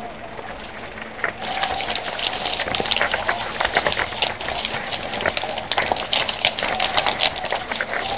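Dense crackling made of many quick, irregular clicks, starting about a second in and continuing without a break.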